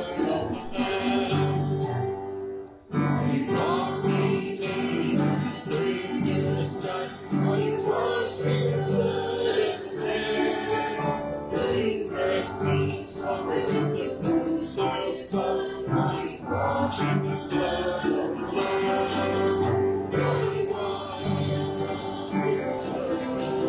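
Worship song: voices singing over an instrumental accompaniment with a steady beat, briefly dropping out about three seconds in.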